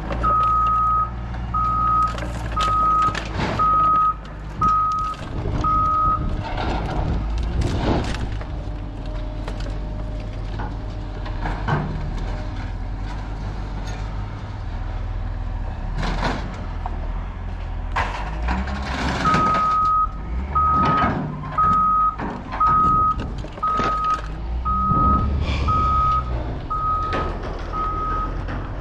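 A vehicle's backup alarm beeping about once a second: a run of six beeps, then a pause, then a run of about nine more in the second half. Underneath it an engine runs steadily, with scattered knocks and clanks.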